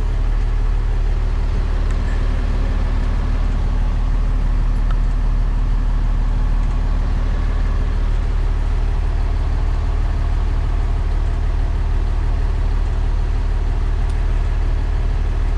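Diesel engine of a 2006 Freightliner M2 Business Class service truck idling steadily, heard from inside the cab.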